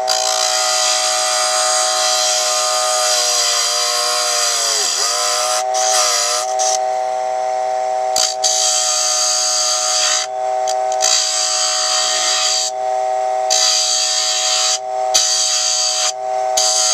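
Dremel Moto-Lathe 700's small electric motor whining steadily while a hand turning tool cuts a spinning half-inch wooden dowel, the cut heard as a hissing scrape that stops and restarts several times as the tool comes off the wood. About five seconds in, the motor's pitch dips and recovers as the cut loads it.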